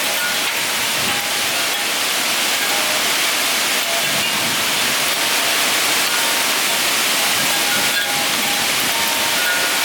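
Steady, loud rushing roar of storm wind during a tornado.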